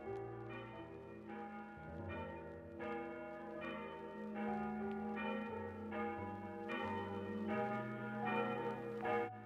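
Church bells ringing for a funeral, several bells overlapping, with a new stroke roughly every three-quarters of a second, growing somewhat louder towards the end.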